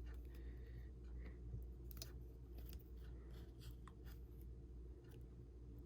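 Faint scattered clicks and light scratches of small iPhone parts being handled during a battery replacement, over a steady low hum.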